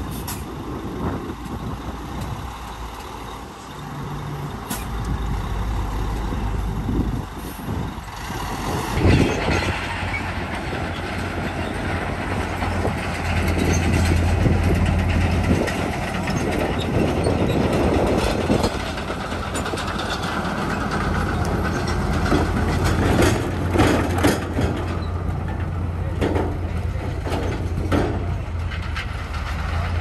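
Heavy diesel construction machinery working, its engine a steady low drone that grows louder about nine seconds in, with scattered clanks and knocks, most of them late on.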